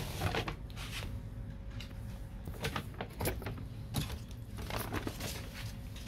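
Paper takeaway bag and cardboard drink carrier being handled: scattered rustles and light knocks of paper and cardboard.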